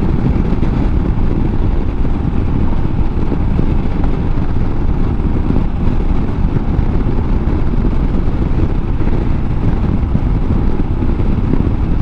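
Royal Enfield Himalayan single-cylinder motorcycle cruising at a steady road speed: a constant rush of wind and engine noise, heaviest in the low end, with no change in pace.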